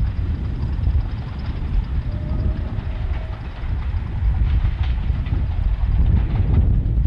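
English Electric Class 37 diesel locomotive approaching with a train of coaches: its engine runs with a heavy, steady rumble, and wheel clicks on the track come through in the second half.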